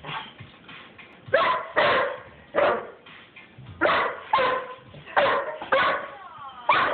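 Doberman barking repeatedly at a spray bottle, about eight sharp barks at irregular intervals.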